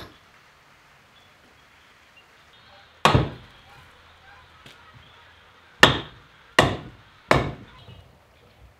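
Four hammer blows on a Series 1 Land Rover's rear axle and differential housing, each a sharp crack with a short ring: one about three seconds in, then three in quick succession near the end, knocking to work the differential loose from the axle housing.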